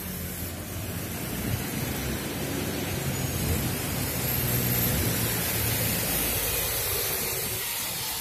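Traffic on a wet city road: a steady hiss of tyres on wet tarmac over a low engine hum, growing louder as a double-decker bus comes up alongside.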